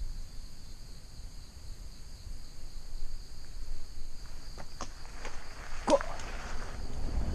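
Insects trilling steadily in a high, even chorus, typical of crickets, with footsteps and a few rustles and clicks picking up in the second half, and a short rising call about six seconds in.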